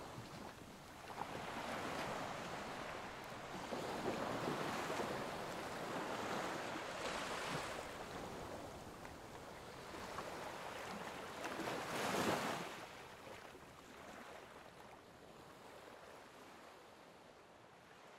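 Ocean surf washing: a hiss of waves that swells and ebbs several times, with a brief louder surge about twelve seconds in, then slowly fades.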